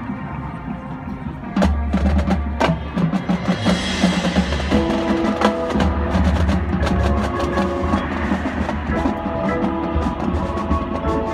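Marching band playing. A percussion-led passage of drum strikes gives way, about five seconds in, to held chords over continuing percussion.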